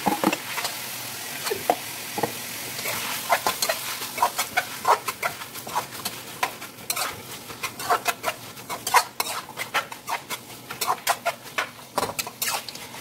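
Pork pieces sizzling as they hit the hot oil in the pan, then a metal spoon stirring and scraping the pan with many quick clicks over the sizzle. The sizzle is strongest in the first few seconds.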